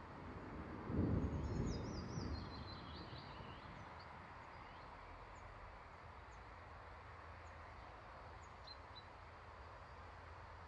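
A low rumble of thunder swells about a second in and fades away over a couple of seconds. Small birds chirp over it and now and then afterwards.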